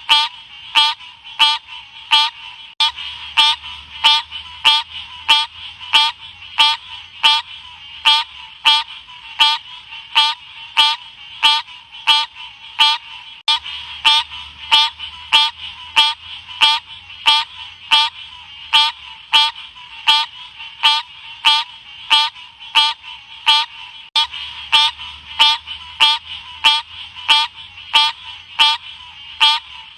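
Green cascade frog (Odorrana livida) calling: short, sharp, high chirps repeated evenly, just under two a second.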